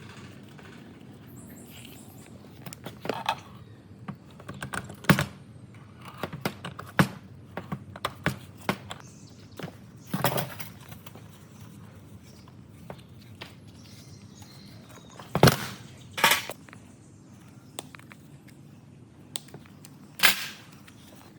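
Irregular clinks and knocks of hand tools and metal parts being handled during work on a rusty old water pump, a dozen or so sharp hits with quiet gaps between them.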